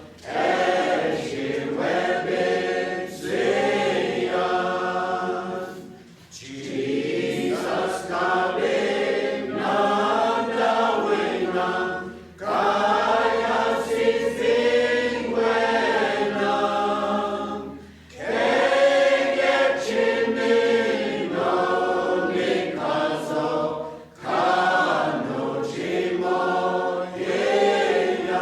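A choir singing a hymn in phrases of about six seconds, with a short break between each phrase.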